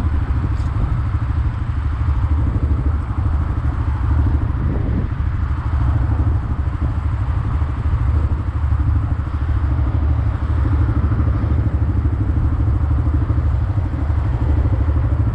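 Honda Grom's small single-cylinder engine running steadily during a ride.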